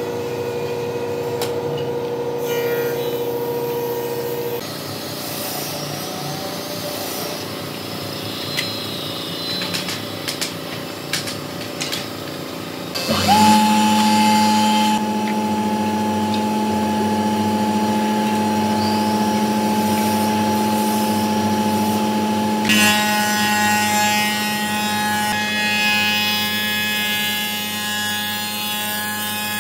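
Spindle moulder (wood shaper) running with a steady machine note, its cutter working along a wooden board. The note changes abruptly about halfway through and becomes louder.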